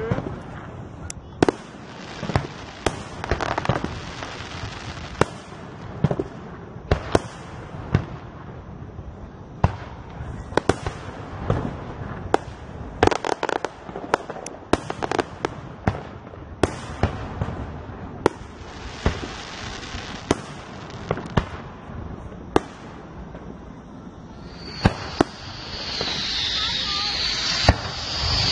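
Fireworks display: aerial shells bursting in an irregular run of sharp bangs, sometimes several close together, each with a short echo. Near the end a high hiss swells under the bangs.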